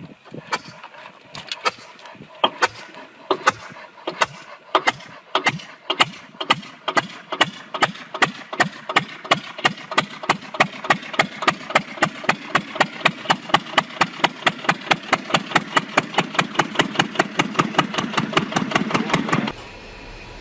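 Small 8 HP single-cylinder diesel engine starting and picking up speed: separate sharp exhaust pops, at first about one a second, quicken steadily to several a second as it runs up. The sound cuts off abruptly near the end.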